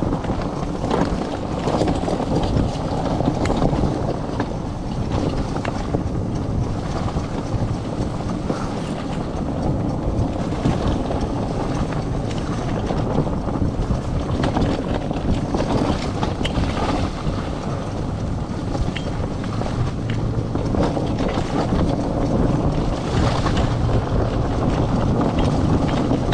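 Four-wheeled dryland dog cart rolling fast along a forest trail, its knobby tyres running over dirt and fallen leaves, with many small knocks and rattles from the frame. Wind rushes across the microphone throughout.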